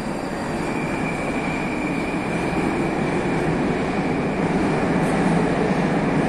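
Moscow metro train rumbling in the tunnel and growing steadily louder as it approaches the station, with a faint high whine from about a second in.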